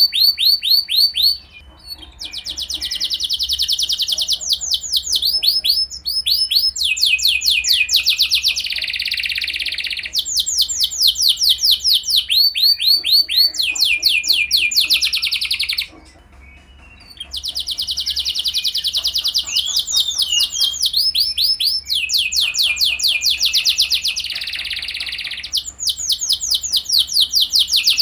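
Canary singing a long song made of fast trills: each phrase is a rapid run of the same repeated chirp, and a new phrase starts every second or two. The song breaks off briefly twice, near the start and just past the middle.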